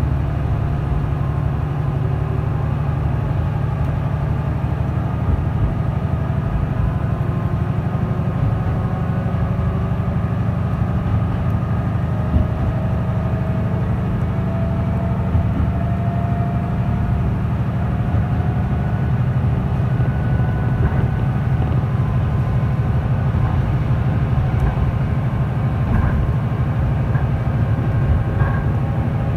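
YR-2000 series diesel railcar running, heard from inside the car: a steady low drone of engine and wheels on rail, with a faint whine that slowly rises in pitch partway through and a few short clicks near the end.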